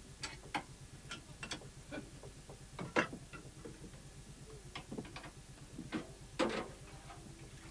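Scattered clinks and knocks of a pot and kitchen utensils being handled, the loudest about three seconds in and again about six and a half seconds in.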